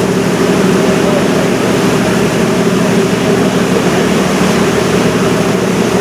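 Steady drone of a river cruise ship's engine, heard on board, with an even hum that holds the same pitch throughout.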